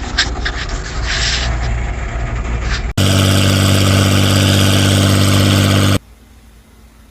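An engine running with a rough low rumble, then after an abrupt cut about three seconds in, an engine idling very steadily for about three seconds before cutting off suddenly to faint hiss.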